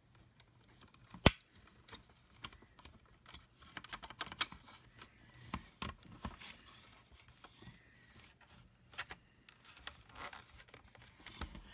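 Plastic housing of a Black and Decker HLVA325JP cordless hand vacuum being handled and pried apart: one sharp loud click about a second in, then scattered small clicks and scraping of plastic parts.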